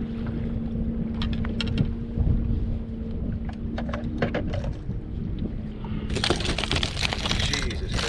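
Wind rumble and a steady low hum from a fishing boat, with a few light clicks. About six seconds in comes a loud crackling rush of splashing as a hooked smallmouth bass is brought to the boat.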